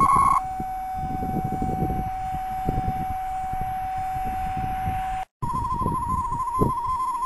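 Homebrew superheterodyne VLF pocket receiver's speaker playing the DCF49 129.1 kHz ripple-control transmitter as a steady whistle tone, which drops to a lower pitch about half a second in. After a brief dropout at about five seconds it plays the DWD 147.3 kHz weather teleprinter signal, a tone flicking rapidly between two close pitches. Low crackling noise runs underneath.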